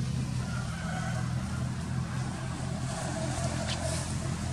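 A steady low motor hum, like an engine idling nearby, with faint higher wavering sounds over it about a second in and again near the end.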